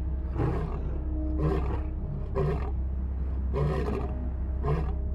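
A lion grunting in an even series of short, deep calls, about one a second, like the grunting run at the end of a roar.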